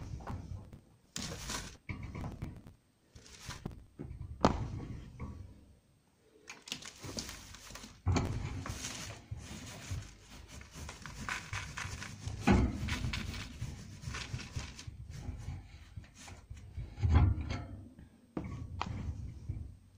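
Newspaper rustling as it is handled in a plastic guinea pig cage base, with irregular knocks and thuds against the plastic; the loudest thud comes near the end.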